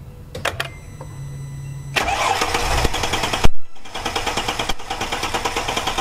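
Mercedes-Benz W211 engine cranking on the starter without catching, from about two seconds in, with a brief break partway through. It is the crank-no-start that was traced to no fuel reaching the engine through a clogged fuel filter.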